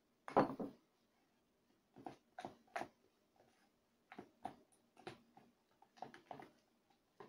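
Metal spoon stirring a thick cocoa and honey paste in a plastic bowl: short scraping strokes, a dozen or so, irregularly spaced. A louder knock about half a second in.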